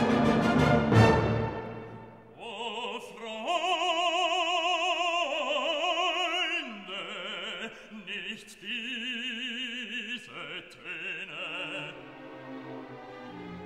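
Background music: classical opera, an orchestral passage that dies away in the first two seconds, then a singer holding long notes with a wide vibrato, quieter near the end.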